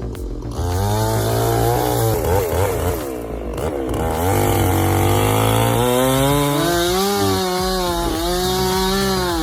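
Chainsaw engine running hard while cutting wood, its pitch wavering up and down as it works; it starts about half a second in.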